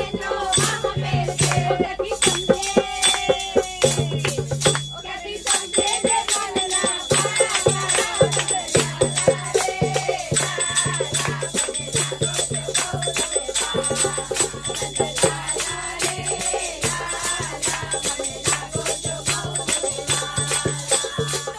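A group of women singing a devotional bhajan together, with fast rhythmic hand clapping and the jingling of small hand-held tambourines.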